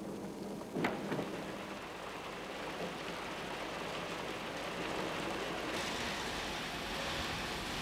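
Wood chips pouring off a conveyor onto a pile: a steady rain-like hiss that grows brighter about six seconds in. A machine hum and a single sharp knock sound in the first two seconds.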